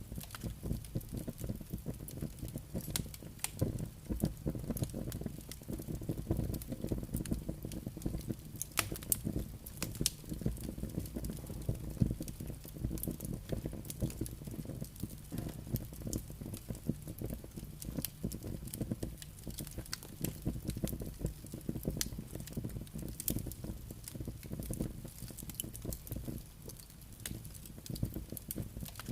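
Campfire burning, with frequent irregular sharp crackles and pops over a steady low rumble.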